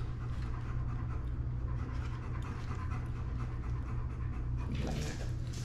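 A dog panting, over a steady low hum.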